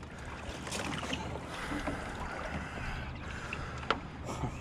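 Wind on the microphone over open water, with light water noise and a single sharp click about four seconds in.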